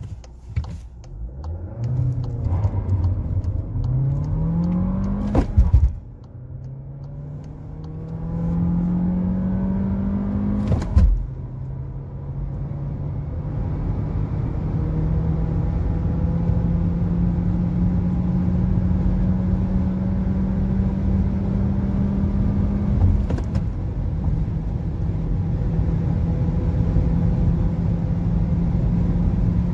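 A 2020 Volkswagen Golf VIII's 1.5 TSI turbocharged four-cylinder petrol engine under full acceleration from a standstill, heard from inside the cabin. The engine note climbs through each gear, with a brief thump at the upshifts about five, eleven and twenty-three seconds in. After the last shift the note rises slowly and the whole sound grows steadily louder.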